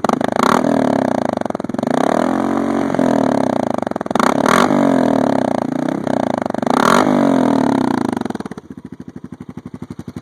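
2012 Honda Foreman 500 ATV's single-cylinder engine revved hard through a Big Guns Eco aftermarket exhaust, loud and crisp with several sharp throttle blips, then dropping back to idle near the end.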